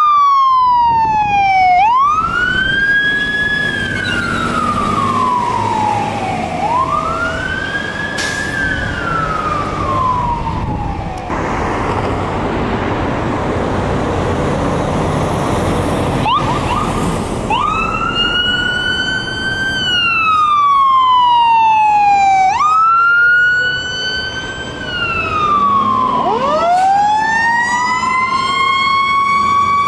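Emergency vehicle siren wailing, its pitch rising and falling about every three seconds. Midway it is drowned for several seconds by a loud rush of engine and road noise, then resumes. Near the end a second siren slowly climbs in pitch alongside it.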